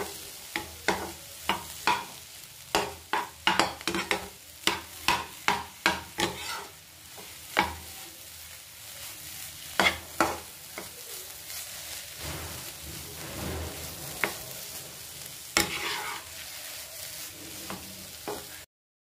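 Steel spatula stirring and scraping a crumbly chana dal and jaggery mixture frying in ghee in a pan, with sharp scrapes and taps about twice a second at first, then fewer, over a faint sizzle. The sound stops abruptly near the end.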